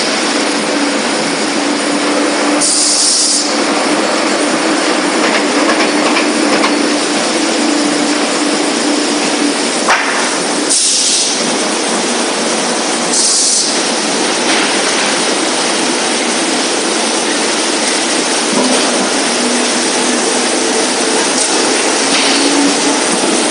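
Veneer peeling line running: rotary peeling lathe and veneer conveyor giving a loud, steady mechanical din over a low hum. It is broken by three short hissing bursts and a single sharp click.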